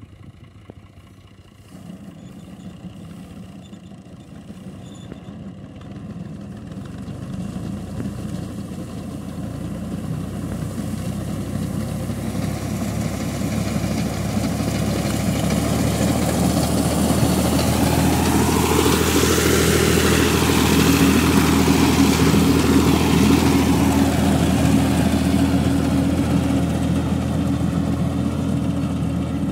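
Tractor engine running steadily as it drives a front-mounted reaper binder through standing wheat, quiet at first and growing louder as the tractor comes closer, loudest about two-thirds of the way through.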